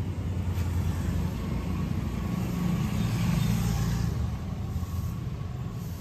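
Street traffic: a motor vehicle's engine running close by, a low steady hum that grows louder a couple of seconds in and eases off toward the end.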